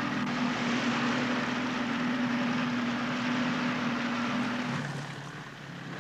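A motor launch's engine running steadily, with the hiss of water along the hull. About five seconds in the engine is throttled back and its hum drops in pitch as the boat slows toward the beach.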